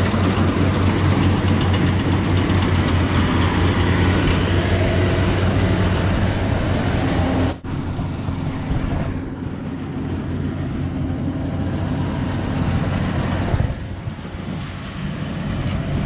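Rice combine harvester running close by, a steady engine drone with a strong low hum. It drops off suddenly about seven and a half seconds in and carries on quieter.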